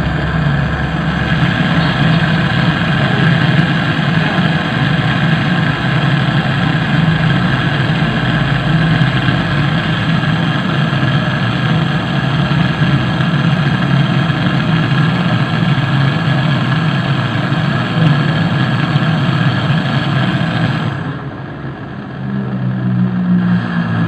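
Brazing torch flame hissing steadily while a capillary tube is brazed into a refrigerator's filter drier. The hiss drops away about 21 seconds in, leaving a lower hum.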